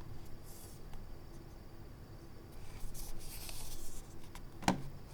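RAWM ES21M gaming mouse: a few faint clicks and a stretch of rubbing, sliding noise, then one sharper, louder click near the end.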